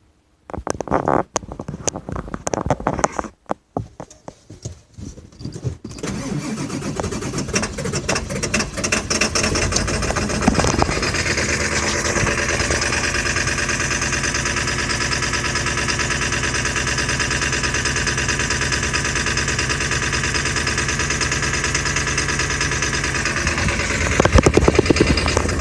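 2000 Ford F550's 7.3 L Power Stroke V8 turbodiesel cranking for several seconds, with a brief pause, before it catches and runs. It runs unevenly at first, then settles into a steady idle, with a louder change near the end. This is a hard start, which the owner puts down to injectors that need replacing.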